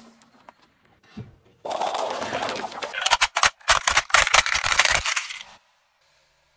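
Car tyre crushing a plastic toy train: the plastic crunches and cracks in a dense run of sharp snaps that starts about a second and a half in and lasts about four seconds, thickest near the middle.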